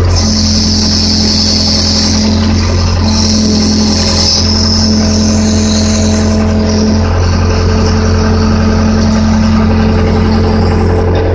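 Case 580D backhoe's engine running steadily under digging load, with a high hiss that comes and goes every second or two as the hydraulic controls are worked.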